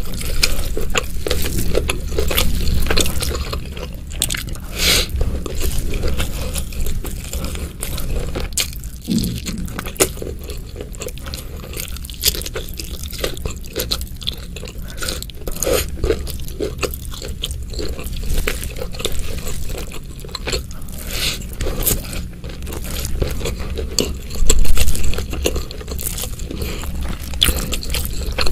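Close-miked chewing and biting of a spicy Indonesian rice meal eaten by hand: a continuous run of small crunches and wet mouth sounds, louder for a moment a few seconds before the end.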